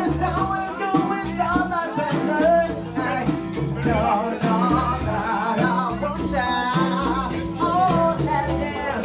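A live band playing at a jam session: a voice sings a wavering melody over guitar, a moving bass line and drums keeping a steady beat.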